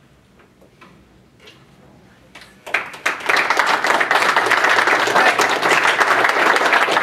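Audience applauding. The clapping starts suddenly nearly three seconds in, after a quiet stretch with a few faint taps, and carries on steadily.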